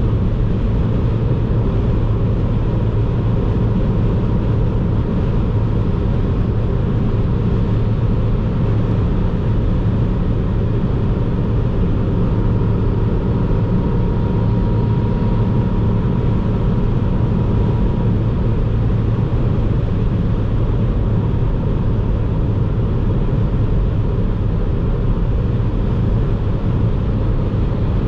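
Ford Fiesta ST's 1.5-litre turbocharged three-cylinder engine and tyres at a steady autobahn cruising speed, heard from inside the cabin as an even low drone and road rumble.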